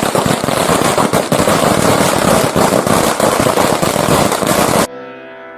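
Firecrackers going off in a dense, rapid, continuous crackle of sharp pops, cutting off suddenly near the end, where quiet background music starts.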